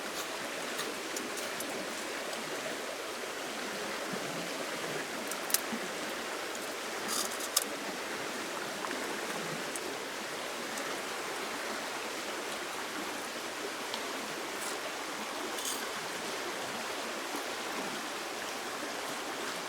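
Steady rush of flowing stream water, with a few scattered sharp clicks, the loudest about five and a half and seven and a half seconds in.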